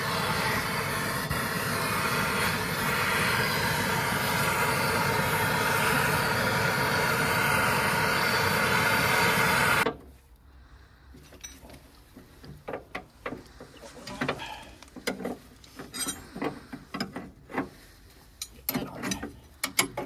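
An aerosol can sprays in a long, steady hiss onto the drum-brake backplate, loosening wheel cylinder fittings expected to be seized, and stops abruptly about ten seconds in. After that come irregular clicks and light metallic knocks of a spanner working on the wheel cylinder bolts.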